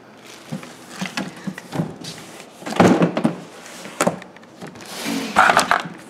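A large cardboard vacuum-cleaner box being handled and turned over by hand: scraping, rustling and knocking of the cardboard, loudest about three seconds in and again near the end.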